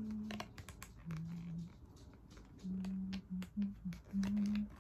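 A few short, low hummed notes at slightly different pitches, over light clicks and taps of small plastic packaging being handled and pushed back into place.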